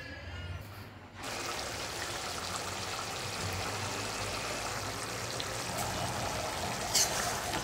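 Fish curry bubbling at a boil in a pan, a steady sizzling, bubbling hiss that sets in about a second in. A single sharp click near the end.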